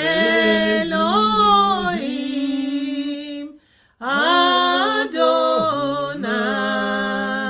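Unaccompanied voice singing a slow worship song on long held notes that bend in pitch, in two phrases with a brief breath between them.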